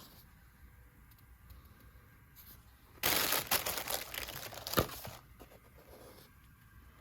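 Monitor packaging being handled and pulled open: about three seconds in comes a loud ripping noise lasting about two seconds, with a sharp click near its end. Faint rustles come before and after it.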